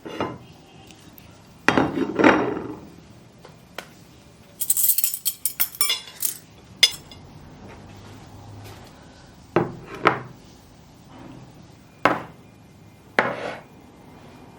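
Dishes and kitchen utensils clinking and knocking: a handful of separate knocks, with a quick rattle of bright clinks about five seconds in.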